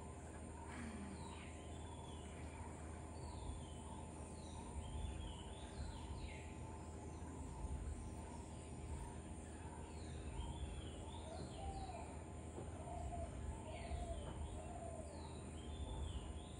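Birds calling outdoors: many short, repeated falling chirps, with a lower warbling call in the second half, over a steady low background rumble.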